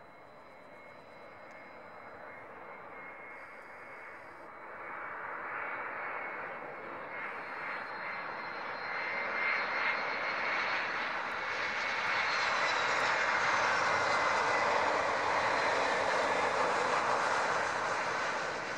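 Airbus A321-211's CFM56 turbofan engines on final approach at low thrust. The jet noise swells as the airliner comes in low and passes for landing, loudest in the second half, with a high fan whine that falls in pitch as it goes by.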